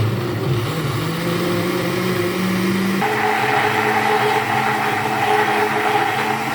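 Countertop blender running, blending chunks of beetroot and apple with water. Its motor pitch climbs slowly, then steps up suddenly about three seconds in and holds steady.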